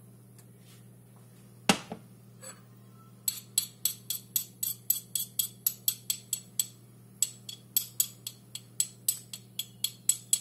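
Pestle pounding in a small mortar, mashing food: a single knock, then a run of rapid sharp strikes, about three a second, with a brief pause midway.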